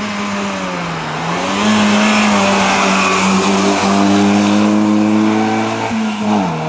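Engine of a small historic hatchback race car at high revs as it passes and pulls away up the hill. The revs dip briefly about a second in, hold high, then fall near the end.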